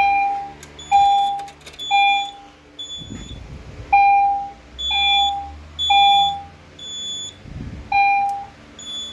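Fire alarm speaker strobes sounding an evacuation tone in a temporal-three pattern: three half-second beeps about a second apart, a pause of about a second and a half, then the next three.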